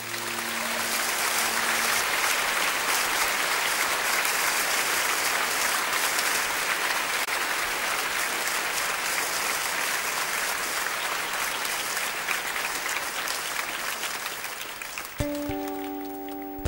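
Concert audience applauding, with the last acoustic guitar notes of the song dying away beneath it at the start. About fifteen seconds in, the applause thins and acoustic guitar playing starts up again.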